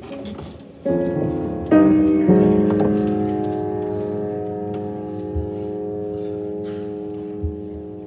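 Chords played on a keyboard: three struck in quick succession between about one and two and a half seconds in, the last held and slowly fading. Two soft thumps sound later under the held chord.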